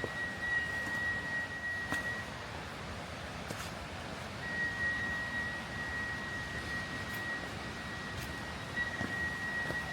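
A steady, high-pitched whistle-like tone of one pitch, of unknown origin, that stops about two seconds in and comes back a couple of seconds later. A few faint clicks sound under it.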